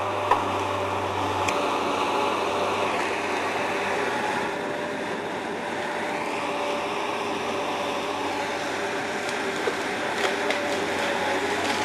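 Tracked excavator-based forestry harvester's diesel engine and hydraulics running steadily as its Lako harvesting head works a tree. A sharp knock comes just after the start and a few light ticks near the end.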